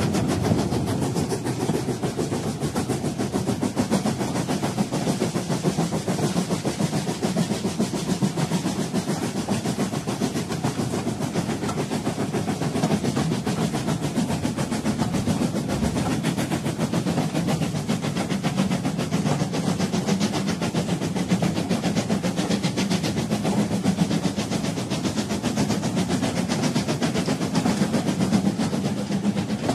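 Steam locomotive hauling a train, running steadily with wheel and rail noise.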